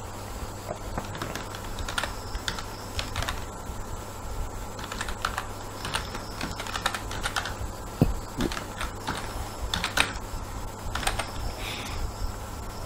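Typing on a computer keyboard: irregular key clicks with a few louder keystrokes, over a steady low hum.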